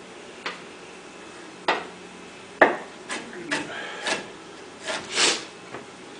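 Kitchenware clattering: a string of about eight separate clinks and knocks of dishes and utensils, the sharpest about two and a half seconds in.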